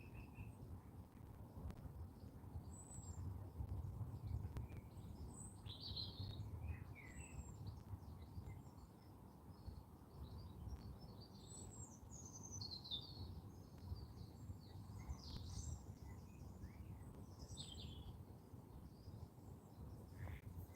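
Faint songbirds chirping and calling on and off, over a low, steady background rumble.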